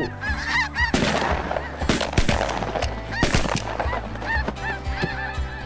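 Several hunters' shotguns firing a ragged volley of about five or six shots, starting about a second in and ending about three and a half seconds in, with snow geese calling before and after the shooting.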